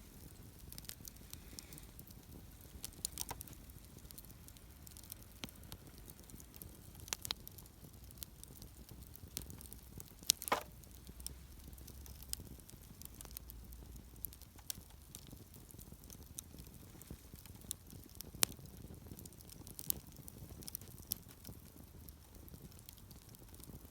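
Wood campfire crackling with scattered, irregular sharp pops, a louder pop about ten seconds in and another near eighteen seconds.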